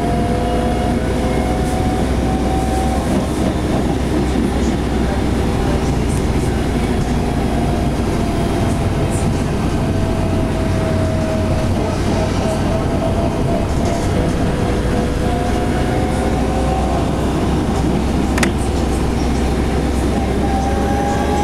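Interior of a city bus on the move: a steady low engine drone with a whine that slowly rises and falls in pitch as the bus speeds up and slows. A single sharp click about eighteen seconds in.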